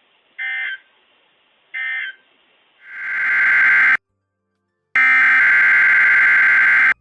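NOAA Weather Radio end-of-message SAME data bursts: short, identical warbling digital bursts, the last two of three at the close of a required weekly test. About three seconds in, a louder, fuller buzzy alert tone swells up, breaks off after a second, and comes back steady for the last two seconds: a WeatherScan alert activation.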